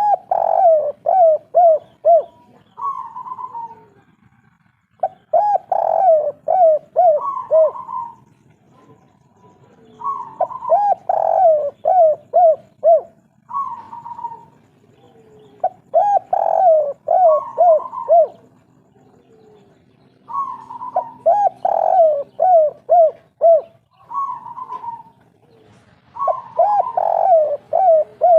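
Spotted dove (derkuku, tekukur) of the 'kuk 3' song type cooing its song phrase over and over: a coo followed by a quick run of five or six short notes, then another coo, repeating about every five seconds.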